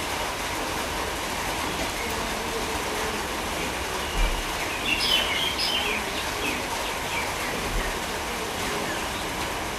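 Steady rumbling background noise, with a few short high chirps about five seconds in.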